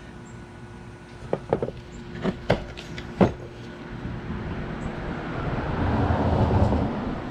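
Several sharp knocks and clicks of metal compressor parts being handled as the cylinder is worked over the piston and its new seal, followed by a rumbling noise that swells and fades over a couple of seconds.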